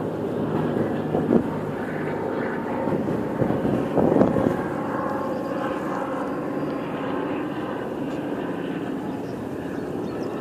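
A formation of DC-3 transport planes flying over, the steady drone of their radial piston engines.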